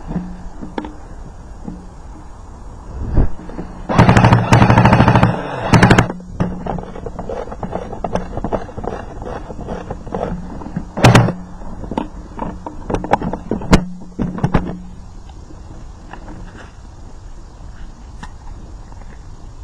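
Airsoft gun firing rapid full-auto bursts: a long burst of about two seconds a few seconds in, a short burst later on, with scattered single shots between and after them.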